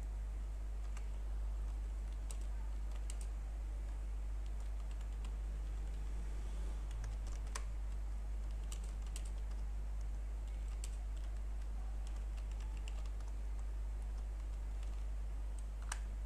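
Computer keyboard typing in scattered keystrokes and short runs, over a steady low hum.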